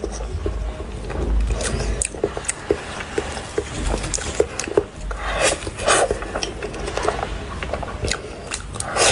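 Close-up chewing and mouth sounds of a soft cream-filled crepe being eaten: many small wet clicks, with a couple of louder bursts of bite and mouth noise, about halfway through and again near the end.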